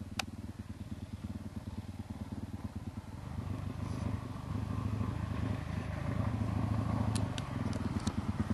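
Dirt bike engine putting along at low speed over rough ground, growing louder about three seconds in as the bike comes closer. A few sharp clicks are heard near the end.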